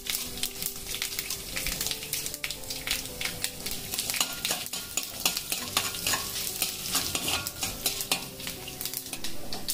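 Mustard seeds and broken dried red chillies crackling and sizzling in hot oil in a hammered steel kadai, while a steel spoon stirs and scrapes the pan. This is a South Indian tempering (tadka).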